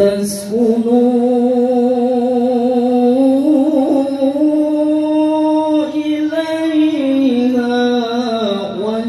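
A man's voice chanting Quran recitation in the melodic tilawah style into a microphone: one long phrase held on sustained, wavering notes that step up in pitch partway and fall away near the end, where the next phrase begins.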